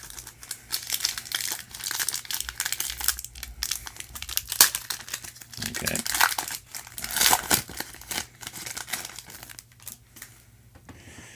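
Foil wrapper of a football trading-card pack crinkling and tearing as it is ripped open by hand and the cards are pulled out: a dense run of crackles and sharp snaps, dying down near the end.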